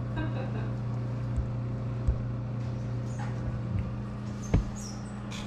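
A baking tray and oven door being handled: a few light knocks, then a sharper clunk about four and a half seconds in, over a steady low hum.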